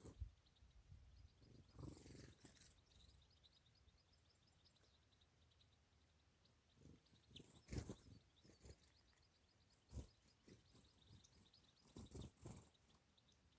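Faint, rapid twittering of small finches in two runs of quick high chirps, with a few soft knocks and bumps, the loudest about two-thirds of the way through.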